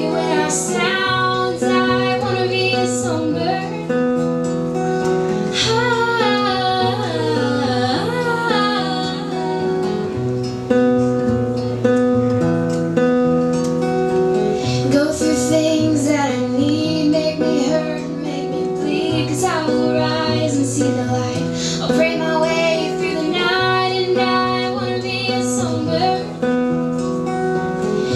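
Live acoustic guitar playing steady chords, with female voices singing a melodic line over it in stretches. The transcript has no words here, which suggests the singing may be wordless or a hummed refrain.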